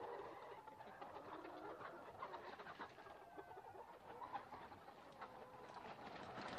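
A flock of laying hens clucking and calling, faint, with many short calls overlapping throughout.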